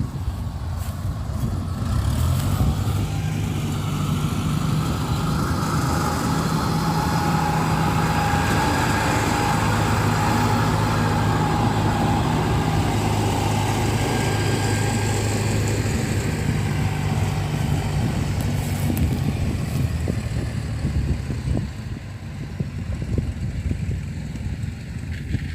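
Kubota DC93 combine harvester running, its diesel engine humming steadily under a whine from the machinery. The sound builds over the first few seconds and eases off near the end.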